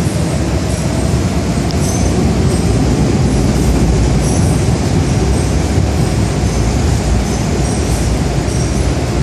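MTR Island Line metro train running along the underground platform behind platform screen doors: a loud, steady rumble with a faint high wheel squeal over it.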